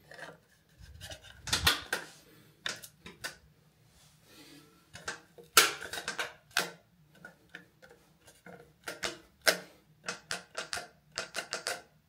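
Plastic clicks and snaps from a MOES Zigbee smart wall switch as its cover panel is pressed and snapped into place on the switch body: many short, sharp clicks in irregular clusters, the loudest about a second and a half in and around the middle.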